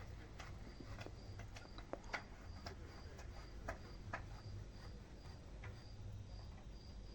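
Faint high-pitched chirping that repeats evenly about two or three times a second, like an insect, with scattered light clicks and taps.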